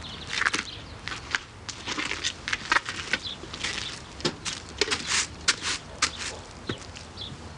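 Footsteps of two people crunching across gravel, with uneven, irregular steps.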